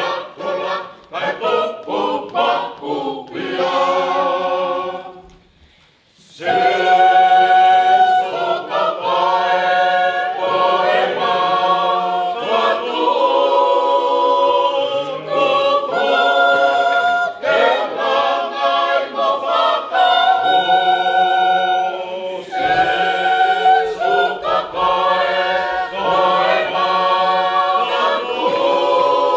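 Tongan church choir of adults and children singing a hymn a cappella in several voices. The singing breaks off briefly about five seconds in, then comes back louder and carries on.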